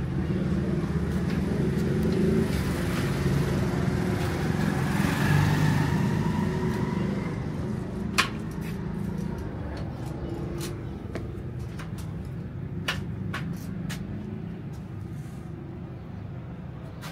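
A motor vehicle passing by on the road, its rumble swelling and then fading, with a few sharp clicks in the second half.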